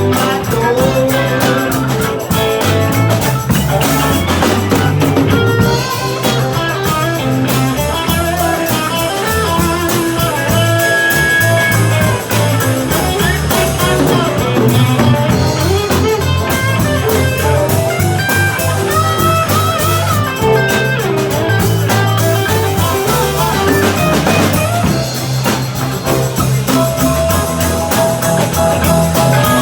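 Live band playing a mid-tempo song, with guitar and drum kit over a steady bass line.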